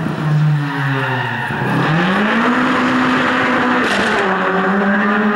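A Lada rally car's engine under hard driving: the revs dip, then climb and hold high, with a short drop in pitch about four seconds in, like a gear change.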